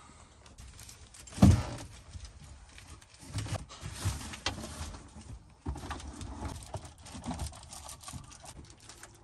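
Handling noises in a van cab as window covers are fitted over the front windows: rustling, irregular knocks and clicks, with one loud thump about a second and a half in.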